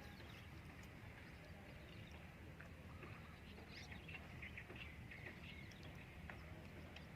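Near-silent outdoor ambience with a low steady hum and faint, short bird chirps, most of them between about three and six seconds in.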